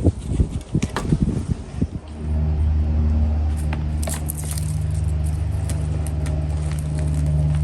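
Mulch and soil being pulled off the top of a grow bag by hand, irregular rustling and scraping. About two seconds in, a steady low engine hum starts and runs on under light clicks.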